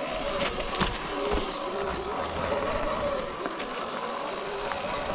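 Sur-Ron electric dirt bike on the move: the electric drive's whine wavers up and down in pitch with the throttle, over a steady rush of tyre, trail and wind noise, with a few light knocks from the bike.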